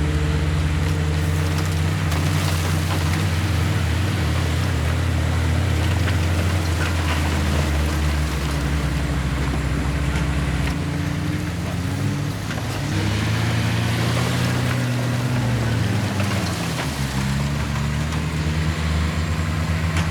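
Heavy diesel earthmoving machinery running: a bulldozer or dump truck engine working steadily, its pitch rising and falling about two thirds of the way through as it is revved under load.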